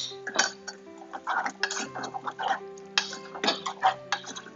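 Wooden spoon stirring chopped tomatoes and onion in a small metal saucepan: irregular clicks, knocks and scrapes against the pot. Steady background music plays underneath.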